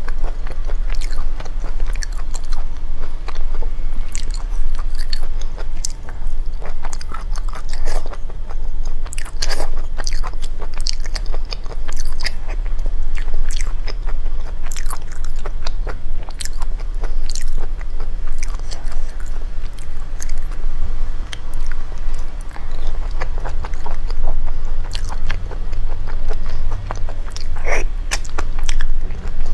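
Close-miked chewing and biting of squid, with many short wet clicks from the mouth and fingers, over a steady low hum.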